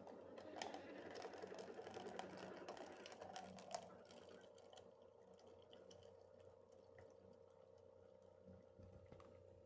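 Cafe Valet single-serve coffee maker faintly gurgling and sputtering with rapid crackling ticks as its heated water is forced through to brew; the crackle dies down about four seconds in, leaving a steady low hum, the sign that it has warmed up fully and coffee is starting to come out.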